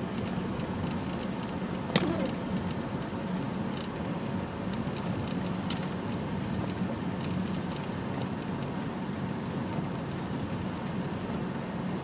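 Steady drone of a car's engine and tyres on a snowy road, heard inside the cabin, with one sharp click about two seconds in.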